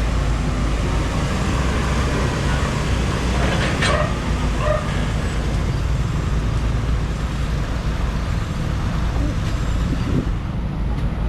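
Excavator's diesel engine running steadily under a constant rushing noise, with a short sharp sound about four seconds in.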